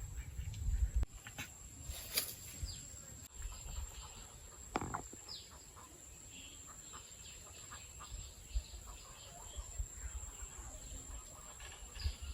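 Quiet rural outdoor ambience: scattered bird chirps, with a short animal call about five seconds in, possibly from a chicken, followed by a brief falling chirp. A thin steady high tone runs underneath, and there is low rumble in the first second.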